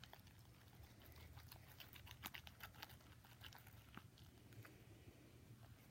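Faint, irregular clicks and squishes of slime being stirred with toothpicks in a small plastic container, working in freshly added laundry detergent to cure its stickiness.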